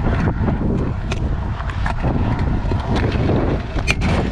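Stunt scooter's 110 mm wheels rolling over concrete, a steady rumble with scattered sharp clicks and rattles, and wind buffeting the microphone.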